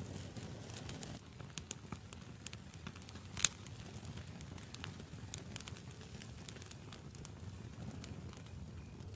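Wood campfire burning and crackling: scattered sharp pops and snaps over a low steady rumble of flames, with one much louder pop about three and a half seconds in.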